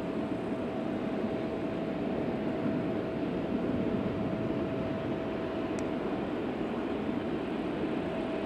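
CFM56-powered Airbus A319 jet engines running at low power while the airliner taxis: a steady rumble with a steady whine held on one pitch.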